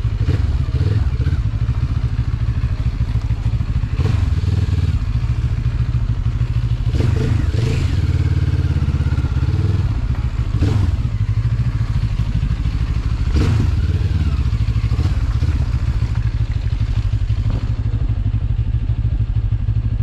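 Benelli TRK 702 motorcycle's parallel-twin engine running steadily at low speed, with a few brief clatters along the way.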